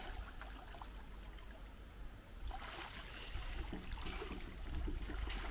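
River water flowing and trickling, with a steady low rumble beneath it.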